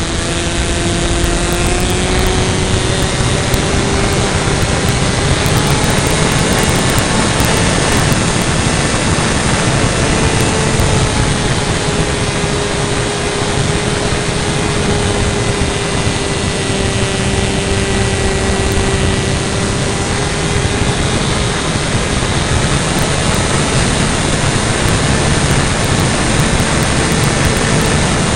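Kyosho Calmato RC model airplane's engine and propeller running steadily, heard from a camera mounted on the plane and mostly buried under loud, constant wind rush, its pitch drifting slightly up and down.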